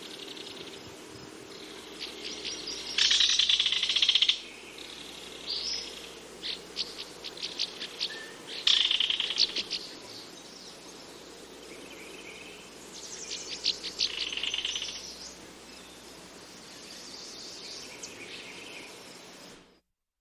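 Kingfisher calling: fast rattling trills of high notes, loudest in three bursts about 3, 9 and 13 seconds in, with shorter scattered call notes between, over a steady low background hum. The calls stop just before the end.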